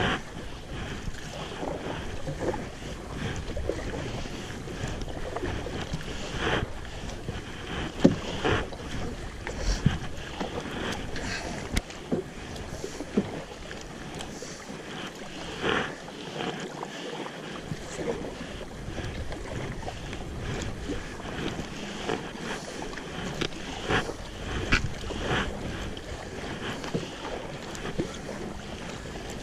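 Kayak paddles splashing into river water in irregular strokes over the steady rush of the current, with wind buffeting the microphone.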